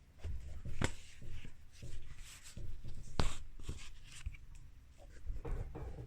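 Hand-work noises: irregular scraping and rubbing with sharp clicks, the loudest a little under a second in and about three seconds in.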